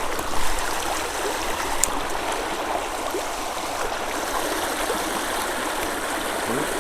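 A small stream running: a steady rush of flowing water.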